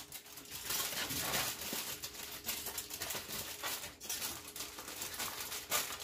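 Aluminium foil crinkling and crackling in irregular bursts as it is folded over a food packet by hand.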